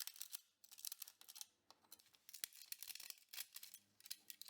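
Support material being snapped and picked off a 3D-printed plastic part, a rapid irregular series of small cracks and crackles.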